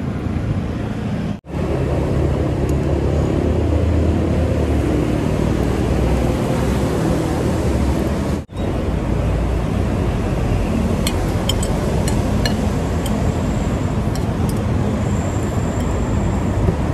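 Steady car and road noise, a low rumble, that cuts out abruptly for an instant twice, about a second and a half in and again past the eight-second mark.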